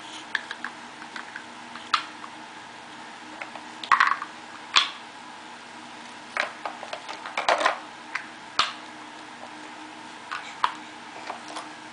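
Wicker basket creaking and clicking as a toddler grips, lifts and tips it: scattered short clicks and light knocks, with a couple of brief rustling scrapes.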